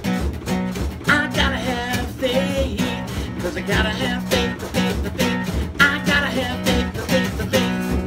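Acoustic guitar strummed in a steady rhythm, with a voice singing over it in phrases.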